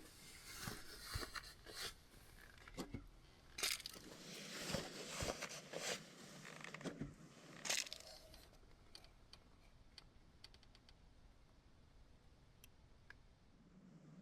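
Stiff plastic crinkling and crunching as a rolled-up piece of milk-jug plastic is handled as a makeshift funnel, in irregular bursts for about eight seconds, then only a few faint ticks.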